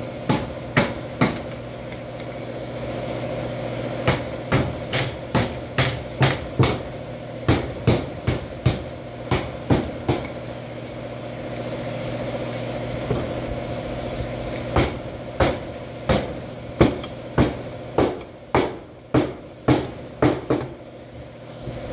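Hammer blows on the crash-damaged rear body metal of a Hyundai Sonata as it is beaten back into shape, in runs of several quick strikes, about two or three a second, with short pauses between. A steady machine hum runs underneath.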